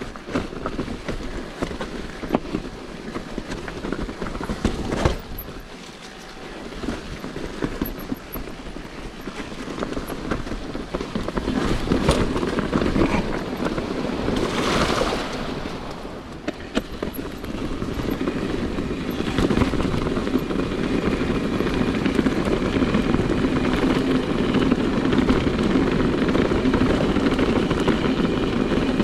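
Mountain bike riding over a rough trail: a steady rushing rumble of tyres and wind with occasional sharp knocks and rattles, getting louder about a third of the way in.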